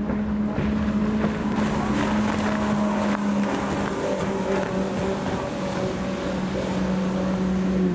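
Mercury Verado 250 Pro supercharged inline-six outboard driving a Phantom 23XL race boat at full speed: a steady, high engine drone. About three and a half seconds in, the pitch drops slightly as the boat passes and pulls away.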